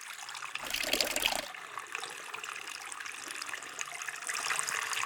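Water from an anti-gravity water-drop humidifier trickling and dripping, a dense patter of small drops. It is louder for about a second near the start.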